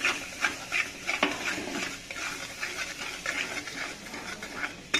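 Steel spatula stirring and scraping beaten eggs around a metal kadhai, in repeated irregular strokes with a sharper clink about a second in, over the soft sizzle of the eggs frying in hot oil.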